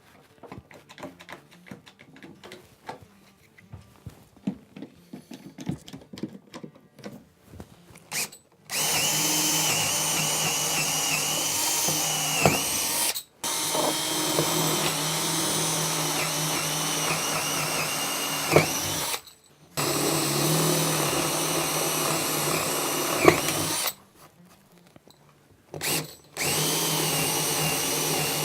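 Power drill boring into wood, running in four long steady runs of several seconds each with short pauses between them, its pitch sagging briefly now and then under load. Light clicks and handling noises come first.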